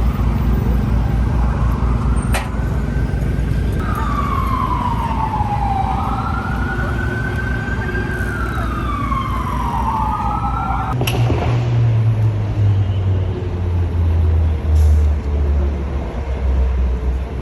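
An emergency vehicle siren wailing, sliding slowly down and up in pitch a couple of times before cutting off about eleven seconds in, over a steady low rumble of street traffic. After the siren stops, a loud low engine drone from a heavy vehicle takes over.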